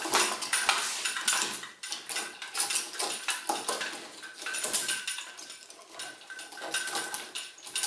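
Metal pivoting jaws of a Merle band clamp clinking and rattling as the clamp is handled and fitted around a wooden tube, an irregular run of sharp clicks.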